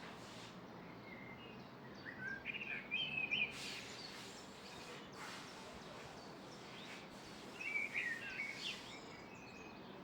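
A songbird chirping in two short bursts of quick twittering notes, about two seconds in and again near the eighth second, over a steady outdoor background hiss.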